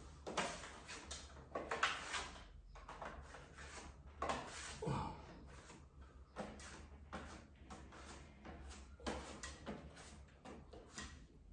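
Faint scraping swipes of a spatula spreading and blotching tinted acrylic putty across a wall for a faux-marble finish, an irregular stroke every half second to a second.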